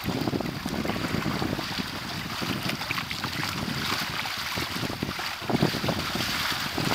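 Wind buffeting the microphone and water rushing and slapping against the hull of a Hobie Tandem Island sailing trimaran running downwind through choppy waves.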